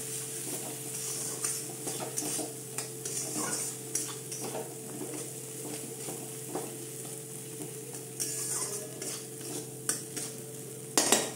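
Metal spatula scraping and stirring a thick spice paste around a metal kadai, the paste sizzling gently in ghee and mustard oil as the ground spices fry on a slow flame. The strokes come irregularly over a steady faint hum, with one louder stroke near the end.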